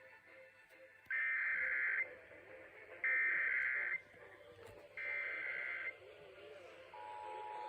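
Emergency Alert System SAME header: three bursts of digital data tones, each about a second long and about a second apart, opening a new Required Monthly Test alert. About seven seconds in, the steady two-tone EAS attention signal begins.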